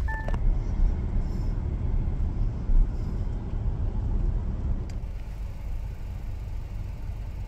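Low, steady road rumble inside a moving car's cabin.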